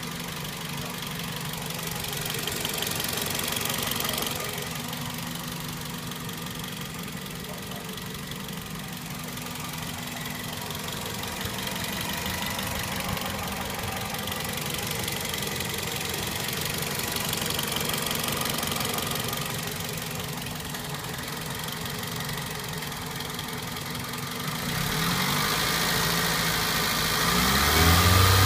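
2004 Toyota Celica GT's 1.8-litre four-cylinder engine idling with a steady, fast ticking, a noise whose cause the owner does not know. It gets louder near the end.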